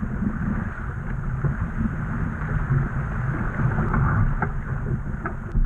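Wind buffeting the microphone and water rushing past the hull of a Laser Vago sailing dinghy under way, with a few short splashes or knocks near the end.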